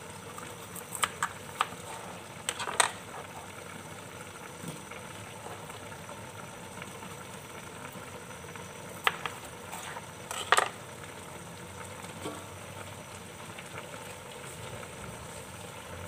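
Chicken and potatoes boiling in a spiced broth in a stainless steel pot, a steady bubbling hiss. A few short sharp knocks and clinks, a cluster in the first three seconds and two more around nine and ten seconds in, as more potato pieces go into the pot.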